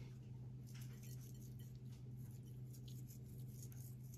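Faint scattered ticks of coarse pink salt grains sprinkled by the pinch onto fish fillets and a ceramic bowl, over a steady low hum.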